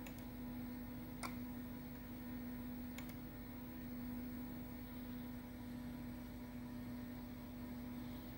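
Three short computer mouse clicks at the start, about a second in and about three seconds in, over a steady low electrical hum.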